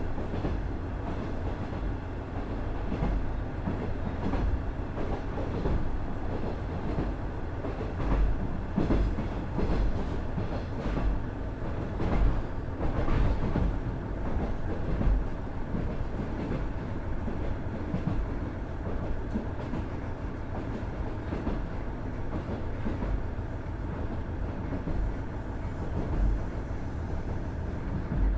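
Running sound of a KiHa 110 series 200 diesel railcar with a Cummins DMF14HZA engine: a steady rumble of wheels on rail with louder bumps now and then.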